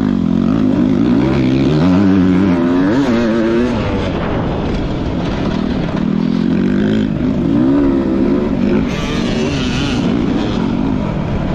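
Off-road dirt bike engine revving up and down as the throttle is worked, its pitch rising and falling again and again.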